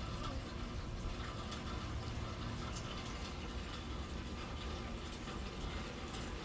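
Steady rain falling, with scattered drips.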